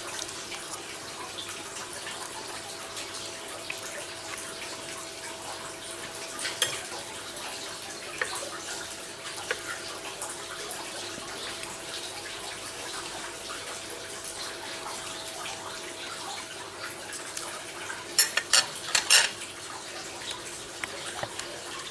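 A metal fork clinks against a ceramic dinner plate during a meal: a few single clicks, then a burst of louder clinks near the end as the fork is put down on the plate. A steady hiss and a faint steady tone run underneath.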